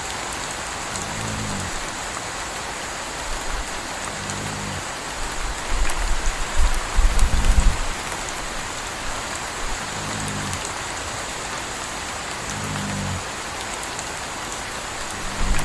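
Steady rain falling, with a puppy snoring softly, one short low snore about every three seconds. A low rumble swells up between about six and eight seconds in and again near the end.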